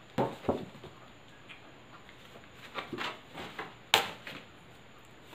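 Paper flashcards being handled: a few soft knocks and rustles, with one sharp tap about four seconds in.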